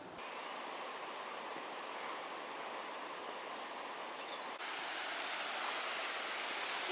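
Steady rush of a waterfall's falling water, with an insect's thin high trill coming and going over it during the first half. The water gets louder about four and a half seconds in.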